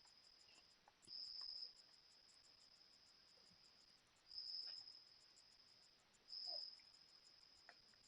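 Insects chirping: a steady high-pitched trill that swells louder three times, with a fast ticking pulse above it.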